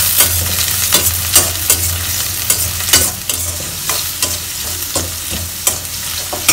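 Shallots and garlic sizzling in hot groundnut oil in a stainless steel kadai, stirred with a steel spatula that scrapes and clinks against the pan about twice a second, over a steady low hum.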